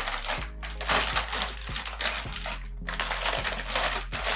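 Crinkling and rustling in irregular surges as the graphics card's packaging is handled, over background music with steady low notes.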